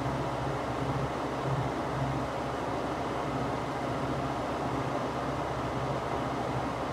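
Electric household fan running steadily: a constant rush of air with a low motor hum that wavers slightly in strength.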